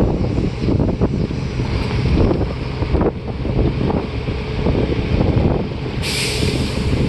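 Wind buffeting the microphone on the open top deck of a moving tour bus, over the rumble of the bus and street traffic. A sudden hiss cuts in about six seconds in and lasts about a second.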